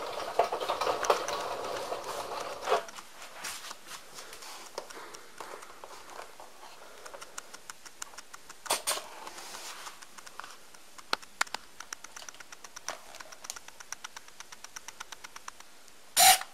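Small clicks and rapid faint ticking from a water-rocket servo timer being handled and switched by hand, with a short whirring tone for the first few seconds and one loud knock near the end.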